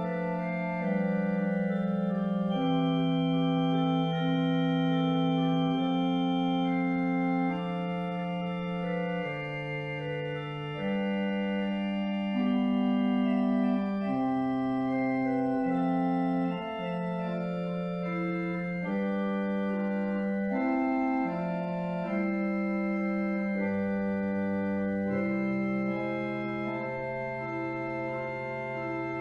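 Organ music: slow, held chords that change every second or two, without any break.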